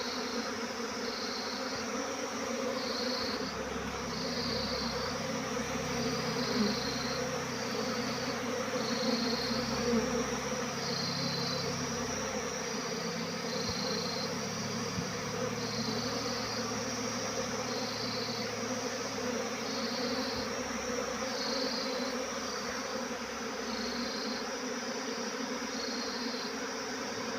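A swarm of honeybees buzzing: a steady, dense hum of many bees flying at once.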